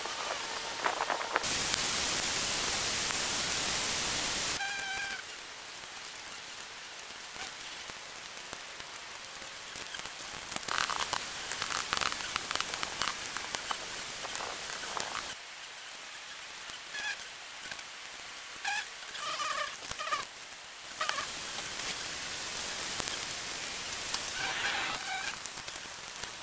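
Fast-forwarded woodland ambience: a steady hiss, much louder for about three seconds near the start, with scattered clicks and short high chirps through the rest.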